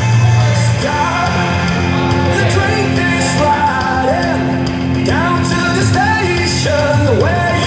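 Loud music with a singing voice, in a rock style.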